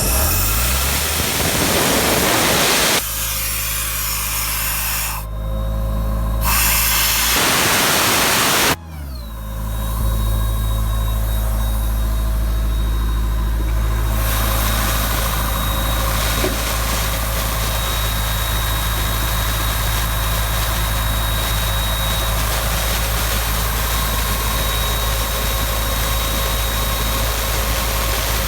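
1999 Ingersoll Rand P185WJD towable air compressor running on its John Deere diesel engine, with compressed air hissing out loudly twice: for about three seconds at the start, then again for about two seconds before cutting off suddenly. After that the engine runs steadily, with a faint high whistle.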